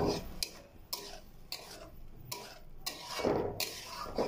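Metal spatula stirring a thick tomato and chicken mixture in a metal pan: several sharp taps against the pan, roughly every half second, and a scraping rasp a little past three seconds in.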